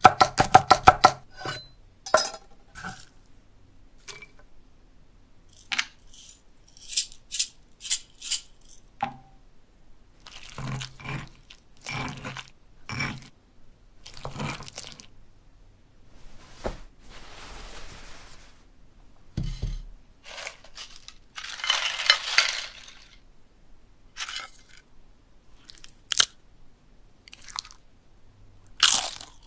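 Kitchen sound effects: a knife chopping rapidly on a wooden board at the start, then scattered crunches, scrapes and clicks as a stone pestle mashes in a stone molcajete, with two longer hissing noises in the second half.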